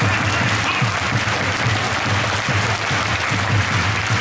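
Stadium crowd applauding a goal, an even wash of clapping, with a low, regular pulse at about two to three beats a second underneath.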